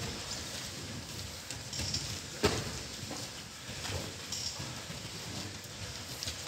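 Bare feet shuffling and bodies thudding and slapping on gym mats as pairs grapple in the clinch, with one sharp slap about two and a half seconds in.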